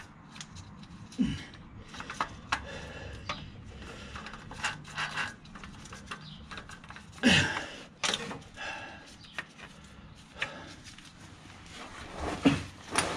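Scattered light clicks, scrapes and rustles of gloved hands working at a newly bolted-on clutch pressure plate under a VW New Beetle, with a louder knock about seven seconds in.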